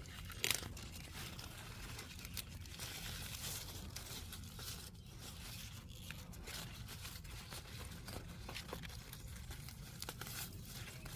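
Weeds and tangled vines being pulled by hand from garden soil: irregular rustling of leaves and the tearing of stems and roots.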